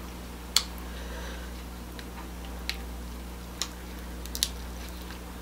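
Cooked king crab leg shell being pried and cracked apart by hand: a handful of sharp clicks spread across a few seconds, the loudest about half a second in.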